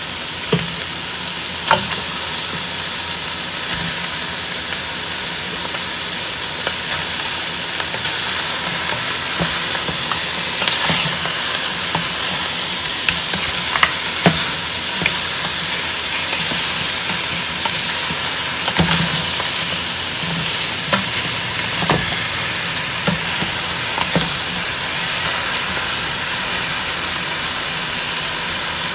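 Blanched beef ribs sizzling in a little oil in a stainless steel pot as they are stirred and turned with a wooden spatula, with a scatter of sharp knocks of the spatula against the pot.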